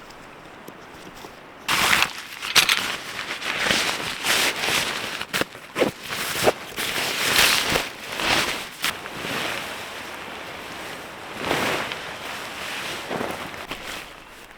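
Irregular rustling swishes of tent fabric and gear being handled during pitching, with scattered sharp clicks, starting about two seconds in.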